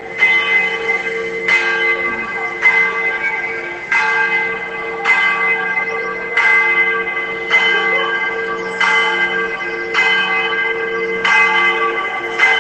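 Church bell ringing in even strokes, about one every 1.2 seconds, each stroke's hum carrying on under the next.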